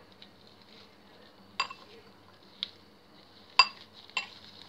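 Metal spoon clinking against a ceramic bowl four times while scooping seasoning powder, the third clink the loudest.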